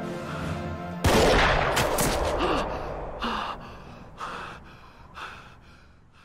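Soft music is cut off by a sudden loud bang about a second in, which rings away over a couple of seconds. A man's short gasping breaths follow, about one a second, growing fainter.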